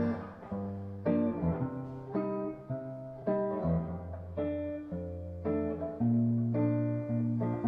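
Instrumental passage of a Korean ballad: plucked guitar notes struck about twice a second over sustained bass notes, with no vocal.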